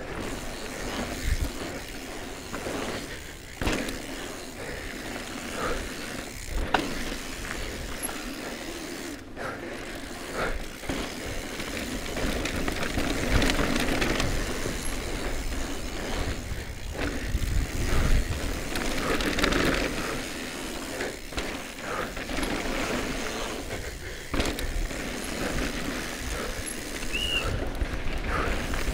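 Cube Stereo Hybrid 140 SLT e-mountain bike ridden fast down a dirt trail: a steady rush of tyre and wind noise, with the bike rattling and knocking over bumps, roots and rocks.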